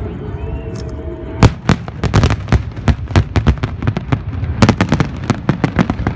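Fireworks going off in a rapid string of sharp bangs, starting about a second and a half in, over a steady low rumble.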